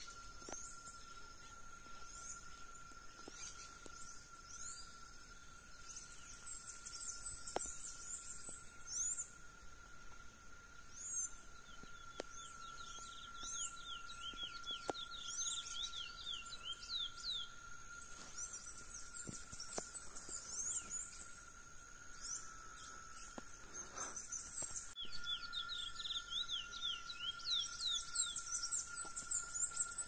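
Wild chestnut-bellied seed finch (curió) singing in bursts every few seconds: quick high chirps and down-slurred whistles. A steady thin high tone runs underneath.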